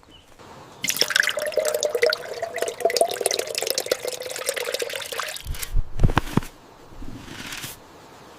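Water pouring and splashing into a container for about four and a half seconds, followed by a few low thumps.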